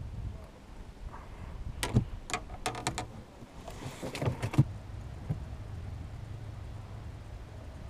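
A quick run of sharp knocks and clatters as fishing gear is handled in a small boat: the rod and landing net bump against the cooler and hull, bunched together about two to five seconds in, over a low steady rumble.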